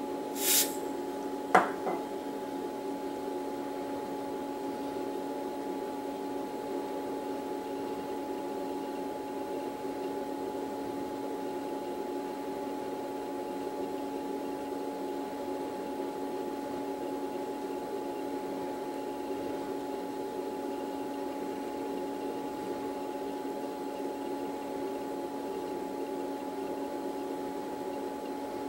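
Steady electrical hum made of several fixed tones, with a brief hiss about half a second in and one sharp click about a second and a half in.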